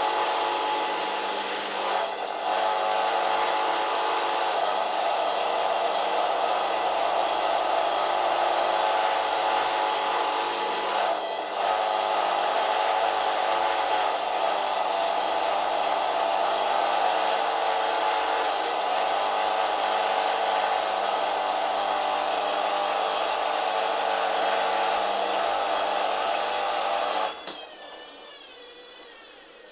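Hoover washing machine spinning at speed, its motor giving a steady whine that wavers slightly. About 27 seconds in the spin cuts out and the drum winds down, the whine falling in pitch and fading.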